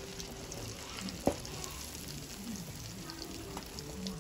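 Egg-and-flour-coated chicken deep-frying in hot grease: a steady sizzle with scattered small crackles, and one sharp click about a second in.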